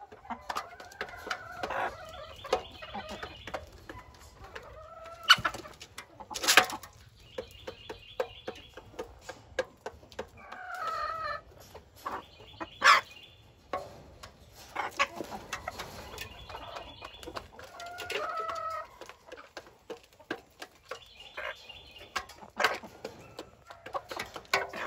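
Bengal fowl hens (grey junglefowl × domestic chicken crosses) clucking softly while feeding. Many sharp taps and a few louder knocks come from beaks pecking grain in a metal feed pan and on gravel.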